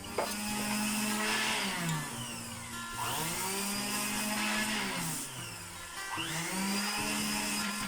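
A power tool's electric motor switched on three times, each time spinning up to a steady whine; the first two runs last about two seconds and wind down, and the third is still running at the end.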